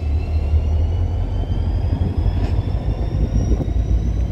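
Freight train rolling slowly past on the Florida East Coast Railway, a steady low diesel rumble with a thin, faint high tone slowly rising in pitch over it.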